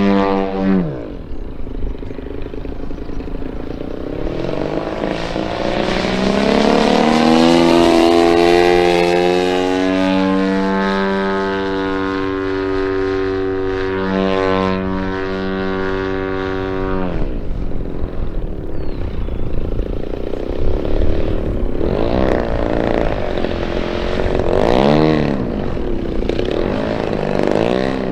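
Giant-scale RC Yak 54's DA-120 twin-cylinder gasoline engine and propeller in flight. The engine is throttled back about a second in, then builds to a steady high-pitched full-power run, drops sharply near the middle, and near the end gives a series of short rising-and-falling throttle bursts.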